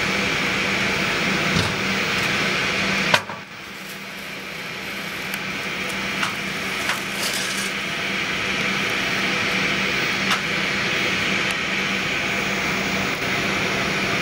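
Steady mechanical hum with a rush of air inside an airliner cabin. About three seconds in a sharp click cuts in, the noise drops, then slowly builds back to the same level, with a few light ticks later on.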